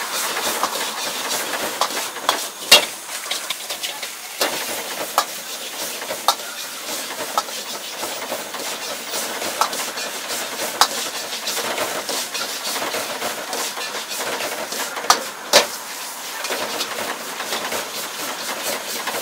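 Egg fried rice being stir-fried in a wok over a high gas flame: a steady hiss of burner and frying rice, with the steel ladle clanking and scraping against the wok at irregular moments, loudest a few times.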